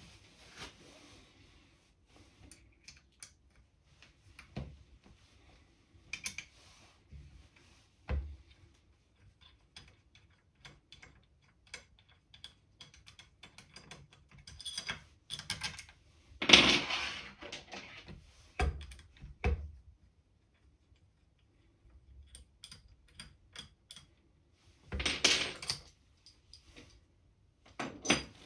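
Scattered small clicks, taps and scrapes of a hand tool and metal screws on an Air Arms TX200 air rifle's wooden stock as the trigger guard is unscrewed. Two louder handling noises come about halfway through and again near the end.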